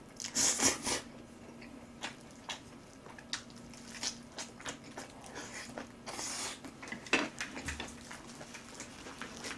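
Close-up mouth sounds of a person eating Chapagetti black-bean noodles and cabbage kimchi: a loud slurp of noodles about half a second in and another around six seconds, with wet chewing and smacking between. A faint steady hum runs underneath.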